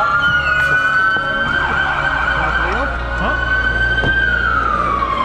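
Police car siren wailing: a long tone held high, then sliding slowly down near the end, over a steady low vehicle rumble.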